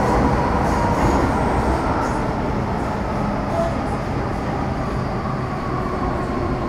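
On-board running noise of an MTR Metro Cammell M-Train car with GEC GTO chopper traction: a steady rumble of wheels on rail, with a few faint steady tones above it.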